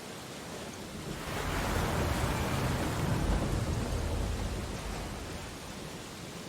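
Ocean surf: a wave swells in about a second in, breaks and washes up, then fades back over a few seconds, over a steady hiss of surf.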